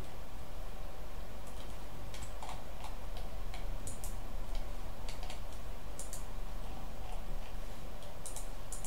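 Computer mouse clicking, a dozen or so sharp clicks at irregular intervals, some in quick pairs, over a steady low hum.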